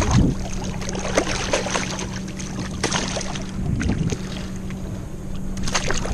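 Fishing boat on the water: a steady low motor hum with water and wind noise, broken by scattered short clicks and knocks.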